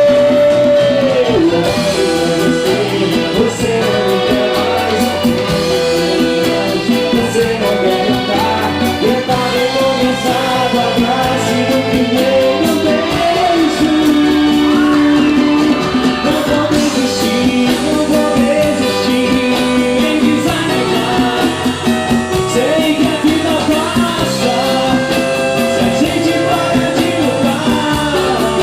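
A live band playing a song with a lead voice singing, loud and continuous.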